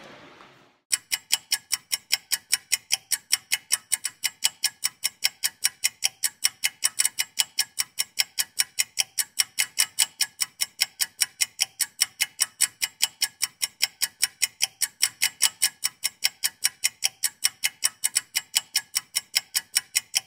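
Clock-ticking sound effect: steady, even ticks about four a second, starting about a second in, like a countdown timer.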